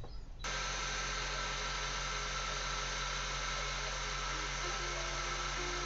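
Mazda 626 GE engine idling steadily, coming in abruptly about half a second in, with several steady high tones over the engine hum. The alternator has just been refitted after work on its humming bearing, and this is the check on that noise.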